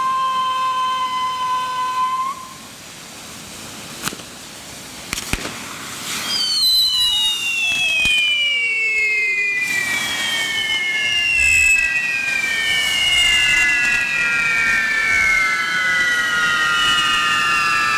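Whistling fireworks on a fire-dragon figure, over a hiss of burning sparks. One steady whistle cuts off about two seconds in, a few sharp cracks follow, and from about six seconds several overlapping whistles slide slowly down in pitch as they burn.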